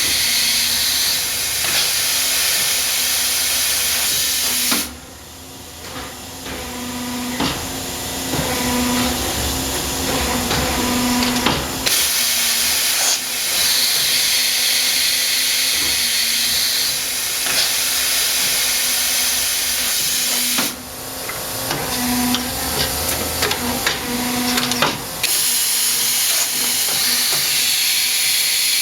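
Hitachi Seiki CA23II CNC lathe running a cycle: a loud steady hiss. The hiss breaks off twice, for several seconds each time, leaving a lower machine hum with whining tones and sharp clicks.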